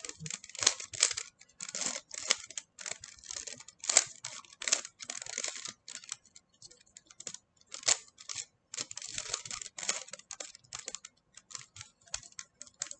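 A 3x3 Rubik's cube being twisted by hand into a checkerboard pattern: quick, irregular plastic clicks and short clattering runs as the faces turn.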